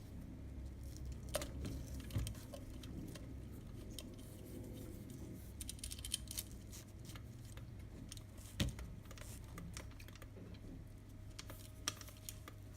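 Scattered small clicks and rustles as a camera strap's nylon webbing, buckle and leather are handled and threaded, with one sharper knock about eight and a half seconds in, over a low steady hum.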